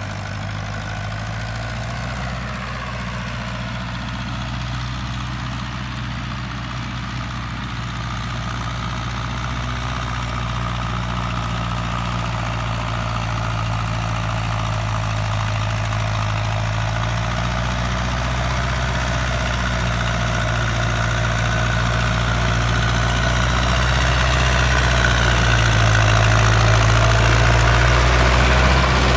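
Farmtrac 6055 tractor's diesel engine running steadily under load as it drives a rotavator through wet paddy soil, getting louder as the tractor draws near.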